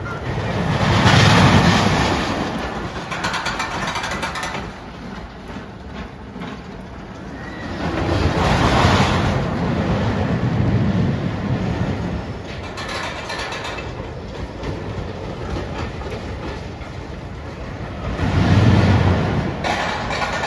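Roller coaster train running along its steel track with a rough rumble and rattling wheel clatter. The rumble swells three times as the train passes close: about a second in, around eight to nine seconds, and near the end.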